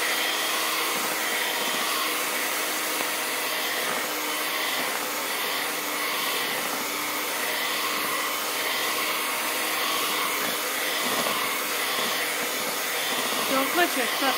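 Electric hand mixer running steadily, its beaters whirring through thick egg batter in a bowl.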